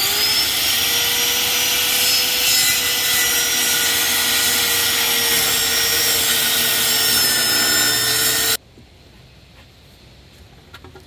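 Corded circular saw spinning up with a rising whine, then ripping a wooden plank lengthwise at full speed, a steady high whine over the cutting noise. It cuts off suddenly about eight and a half seconds in.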